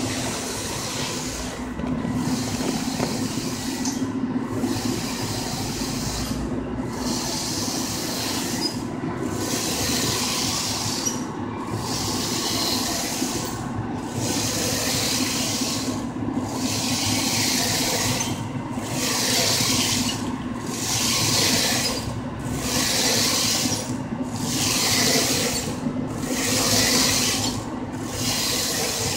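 Infiniti 3360EC Plus wide-format printer running: the print carriage sweeps back and forth with a hiss that breaks off briefly at each turn, about every two seconds, over a steady machine hum.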